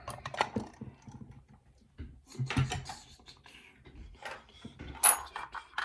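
Small clicks and rattles of a just-picked challenge lock and its picking tools being handled, with a sharper click about five seconds in.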